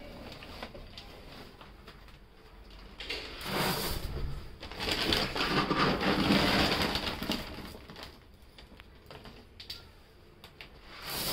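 Plastic polybags rustling as dry dog kibble is scooped and poured into them, the pellets crunching and rattling, in two long spells from about three seconds in, with quieter handling and a few light clicks later.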